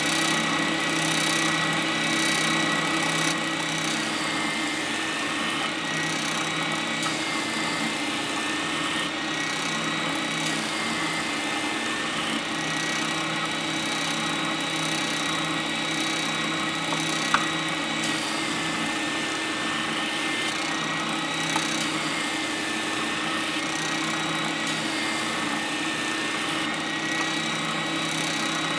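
Triton oscillating spindle sander running steadily, its sanding drum working the end grain of an oak block passed across it through a planing jig. Two brief clicks partway through.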